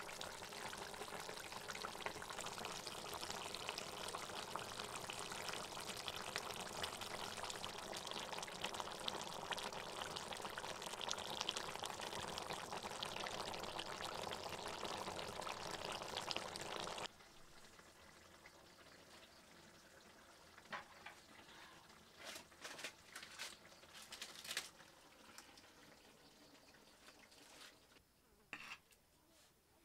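Small whole fish in a spicy gravy bubbling and sizzling steadily in a wok. The sound cuts off suddenly about seventeen seconds in, leaving faint room sound with a few light clicks and knocks.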